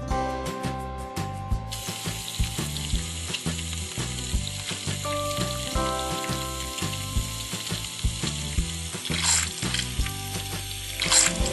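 A steady hiss from the miniature kitchen play begins about two seconds in and holds evenly, over background acoustic guitar music.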